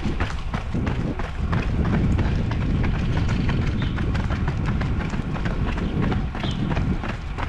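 Running footsteps of several runners on a paved path: quick, irregular footfalls over a steady low rumble.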